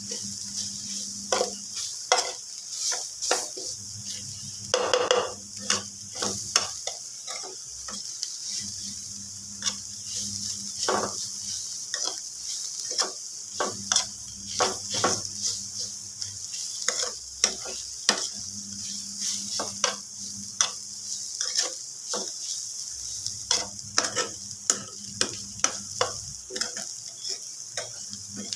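Paneer bhurji (crumbled paneer with onions and spices) sizzling in a steel frying pan while a spoon stirs it, with frequent clicks and scrapes of the spoon against the pan.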